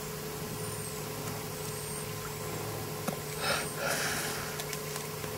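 A woman exhaling cigarette smoke, a soft breathy rush about three and a half seconds in, over a steady low hum and a few faint high whistles.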